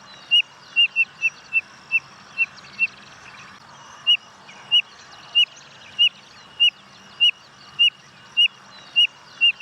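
Spotted nothura (codorna amarela) calling: a series of short, high whistles, each falling in pitch, about two a second, with a brief pause about three seconds in. Faint chirping of other birds sits behind it.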